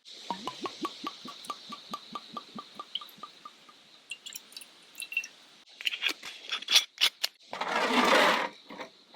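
Whiskey glugging out of a bottle as it is poured into a glass, a quick even run of gurgles. Small clinks and knocks follow, and near the end there is a second-long rush of noise.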